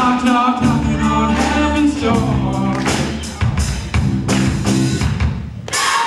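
A live rock band playing: electric guitars, bass guitar and a drum kit, with voices singing into the microphone for the first couple of seconds.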